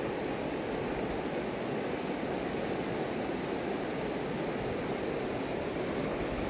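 Shallow river rushing over a gravel bed: a steady, even noise.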